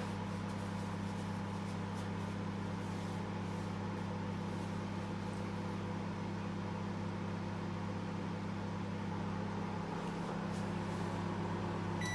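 Microwave oven running with a steady low hum, then cutting off with a beep at the very end as its timer runs out.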